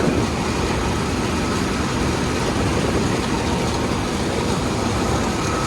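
Combine harvester running steadily while cutting corn.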